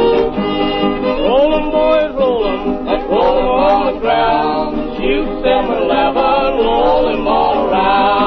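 Old-time string band music from a 1920s recording: fiddle and guitar playing, with a man singing, the sound dull and thin on top as on an old record.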